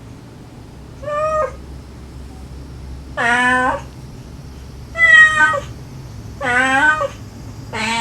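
Domestic cats meowing, about five separate meows of roughly half a second each, coming about every one and a half seconds. This is a recording of a mother cat's calls and her kittens' meows.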